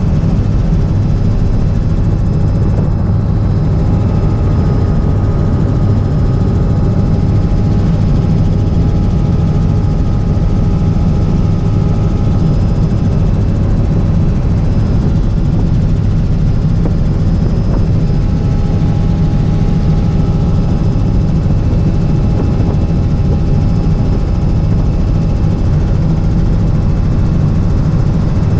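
Small helicopter in flight, heard from inside the cabin: loud, steady rotor and engine drone with a few constant higher tones above it.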